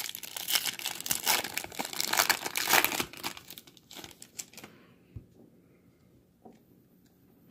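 Foil wrapper of a trading card pack being torn open and crinkled by hand, loud and dense for about three seconds, then fading to a few faint rustles and clicks as the cards come out.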